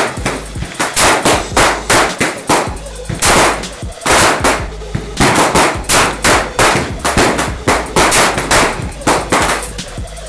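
Gunshots fired one after another in quick, uneven succession, about two to three sharp cracks a second.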